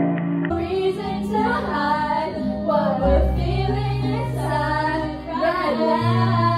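Karaoke: a song's backing track plays over the room's speakers while female voices sing along into a microphone. Different music plays for the first half-second before the singing starts.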